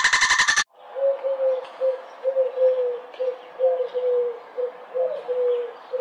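A dolphin's rapid buzzing click train cuts off within the first second. Then a white domestic pigeon coos: a long run of short low notes, all at one steady pitch.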